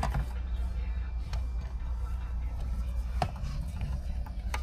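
A few sharp, isolated clicks from tools on the car's dashboard trim during screw removal, spaced a second or two apart over a steady low hum.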